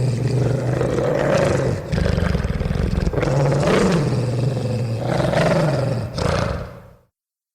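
Werewolf growl sound effect: a deep, loud growl in four long phrases, each rising then falling in pitch, with short breaks between them. It fades out about seven seconds in and gives way to silence.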